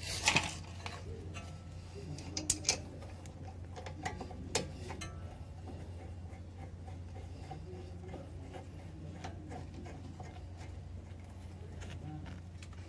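A few sharp metallic clicks and taps from hands working at a disc brake caliper's slide-pin bolt, over a steady low hum. The loudest click comes right at the start, a quick cluster about two and a half seconds in, and two more around four seconds in.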